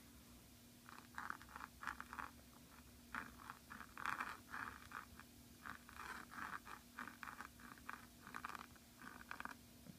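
A Brause Rose flex nib on a Jinhao x450 pen scratching across paper while writing script, in many short, irregular strokes.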